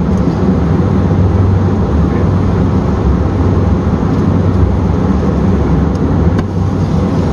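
Lit brazing torch with a rosebud tip burning with a steady roar, ready to heat the joints of a brass liquid line solenoid valve to unsweat it. A couple of light taps sound near the end.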